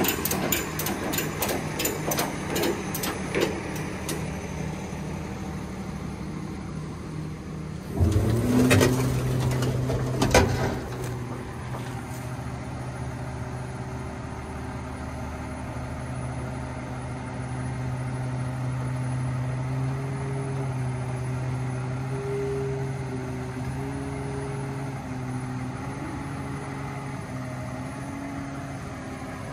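Flatbed tow truck's engine running to drive the hydraulics while the tilted bed is lowered, a steady hum that swells a little about halfway through. Fast, even clicking in the first few seconds, and two loud metal clanks with a burst of hiss about eight and ten seconds in.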